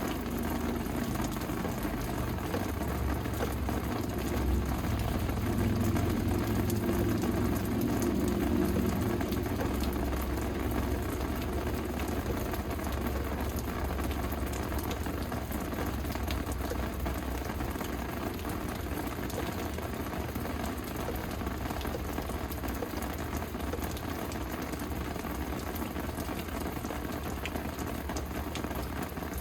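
Steady rain with scattered drops pattering, over a low rumble that is strongest for the first ten seconds or so and then fades.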